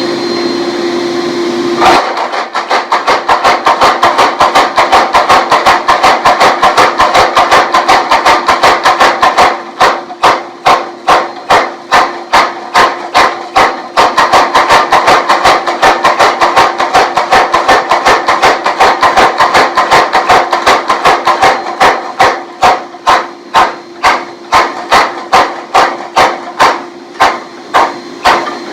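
Power hammer striking hot 4142 chromoly steel in a quick, regular train of blows, flattening and widening a tomahawk blade, over the steady hum of the machine's motor. The blows start about two seconds in.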